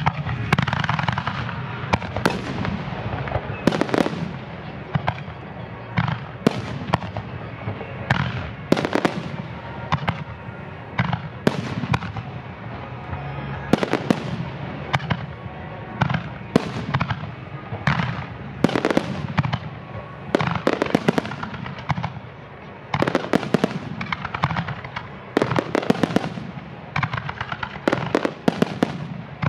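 Starmine fireworks barrage: aerial shells bursting in quick succession, dozens of sharp booms with crackling between them. The bursts come thicker over the last several seconds.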